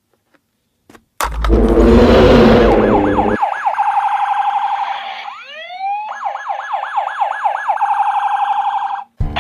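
Toy emergency truck's electronic sound effects. A loud engine noise for about two seconds, then a rapid yelping siren wailing up and down several times a second. A few rising chirps interrupt the siren briefly, and it cuts off suddenly near the end.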